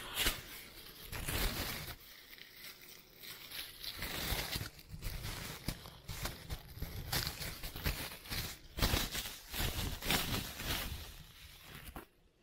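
Irregular rustling and crinkling with light clicks and knocks from things being handled by hand. No motor is running.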